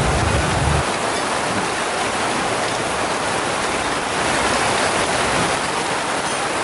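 Heavy rain falling steadily: a dense, even hiss. A low rumble underneath stops about a second in.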